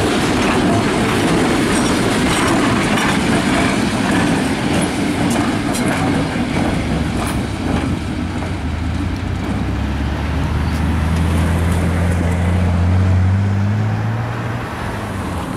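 ALCO RS-1 diesel locomotive and its train passing close by, the wheels clacking over the rail joints and the engine running. From about halfway there is a steady low engine drone that rises a little in pitch near the end.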